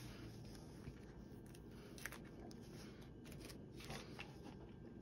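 Near silence with a few faint clicks and soft rustling from hands handling a cardboard craft piece and a thin wire LED light strand on a tabletop; the sharpest click comes about two seconds in.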